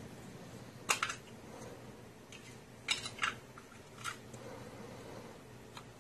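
Small hard objects being handled: about four separate sharp clacks, two of them close together in the middle.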